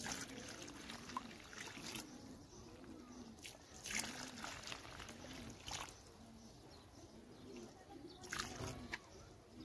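Water poured from a plastic bucket onto clay soil in a plastic tub, trickling and splashing faintly, with a few sharper splashes.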